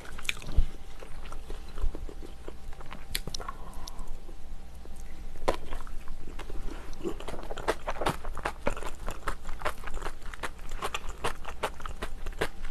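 Close-miked chewing and mouth sounds of a person eating rice and seafood stew: many short, irregular wet clicks and crunches, with one louder low thump about half a second in.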